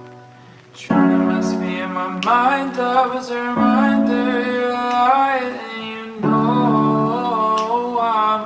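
A song: a voice singing over piano chords. A chord fades out, a new one is struck about a second in, and the voice comes in soon after.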